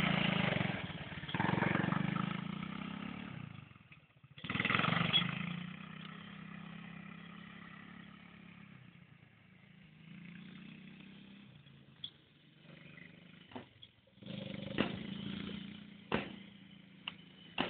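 Quad bike (ATV) engine revving loudly as it pulls away, twice in the first five seconds, then fading as it moves off, with a brief rise again later. Several sharp knocks sound near the end.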